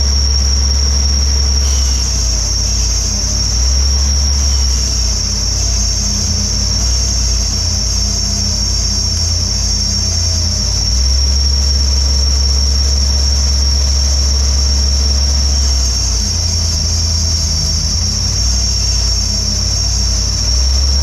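Stick-welding arc crackling and hissing from about two seconds in, fed by an engine-driven alternator converted to weld. Underneath, the Jeep's LS V8 runs at a steady raised idle of about 1500 RPM.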